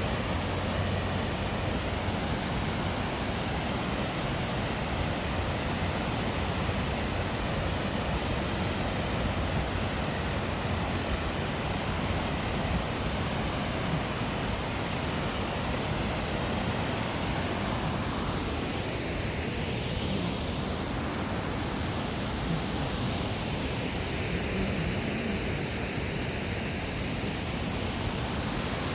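Steady rushing noise of a waterfall, Harajiri Falls, pouring without a break. The tone of the hiss shifts briefly twice in the second half.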